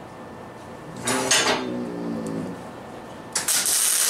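Steel pieces clanking and scraping against metal, with a ringing scrape about a second in, then a loud harsh hiss starting near the end.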